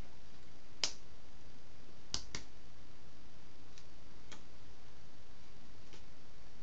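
Short sharp taps and clicks of hands striking each other and the body while signing: a loud one about a second in, a quick pair just after two seconds, and fainter ones near four and six seconds, over a steady microphone hiss.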